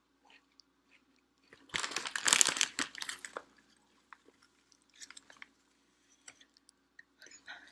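Potato chips crunched and chewed close to the microphone: a loud, dense burst of crunching about two seconds in, then softer crunches twice more.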